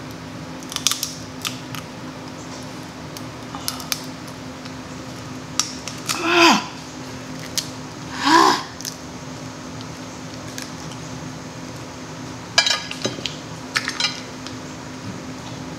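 Crab legs being eaten: scattered sharp clicks and cracks of shell and utensils against dishes, with two short squeaky, gliding sounds about six and eight seconds in.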